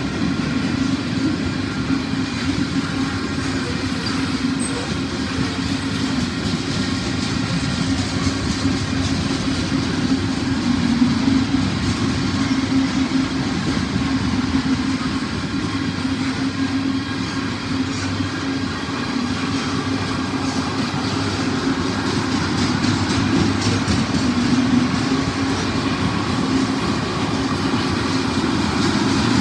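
Freight train of covered hopper cars and tank cars rolling past, a steady rumble and rattle of steel wheels on the rails that holds an even level throughout.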